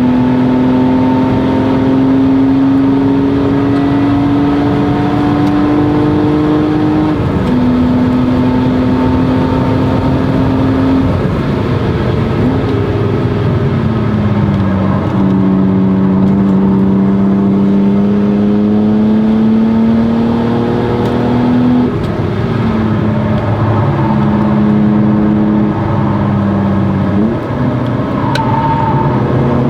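1997 BMW E36 M3's straight-six engine through a Stromung cat-back exhaust, pulling hard in gear with its pitch slowly rising. The pitch drops several times, a few seconds apart, at shifts or when the throttle is lifted for corners.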